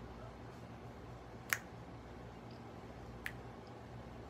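Finger snaps: two sharp snaps about two seconds apart, over a faint steady room hum.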